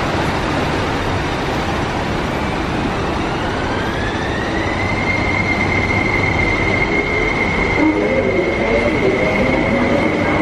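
MTR SP1900 electric train pulling away from the platform. Its traction motors give a whine that rises in pitch as it picks up speed, then holds a steady high note. Wheel and rail rumble grows louder as the cars pass.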